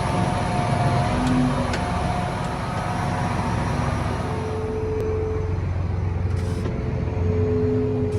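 A vehicle engine running steadily, a continuous low rumble with a few faint held tones over it.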